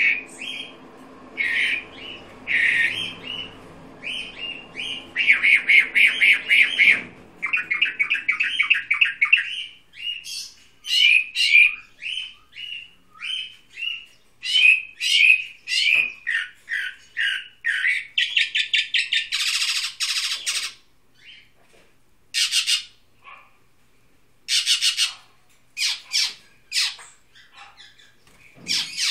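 A caged songbird singing a long, varied song of rapid repeated chirps and trills, broken by a few short harsh rasping notes in the second half.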